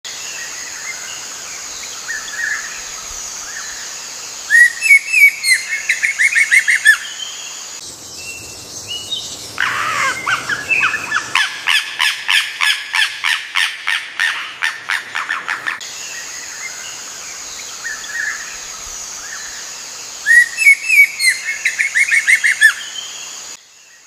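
Forest birds calling, with two quick runs of repeated chirping notes and a long fast series of calls at about four a second in the middle, over a steady high-pitched hiss. The opening passage of calls is heard twice, identically.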